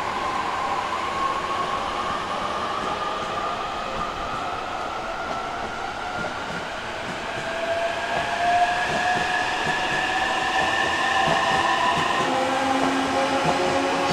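Orange-and-green striped JR East commuter electric train pulling away, its traction motors whining in tones that rise slowly in pitch as it accelerates, over the rumble of the train on the rails.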